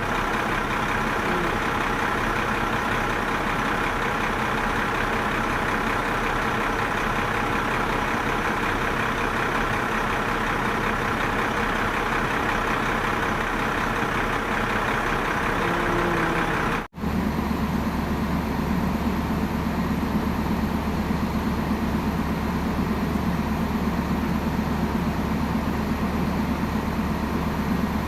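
Heavy vehicle engine idling steadily. About two thirds of the way through the sound cuts to another steady idle with a deeper, lower drone.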